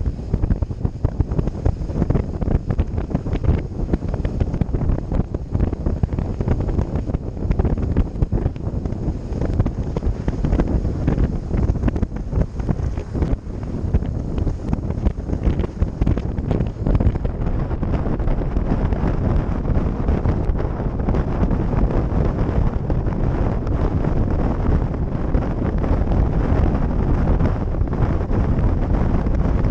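Wind buffeting the microphone of a motorcycle riding at road speed: a steady low rush that covers the engine and tyre noise.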